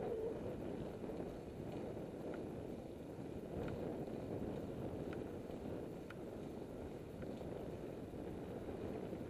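Steady wind rush over the microphone and tyre noise from a bicycle rolling along a tarmac lane, with a few faint ticks now and then.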